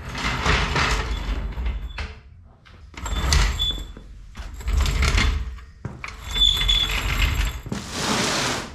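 Mechanical tool noise as a wheel is taken off a side-by-side: five bursts of about a second each with short pauses between, the last one hissier.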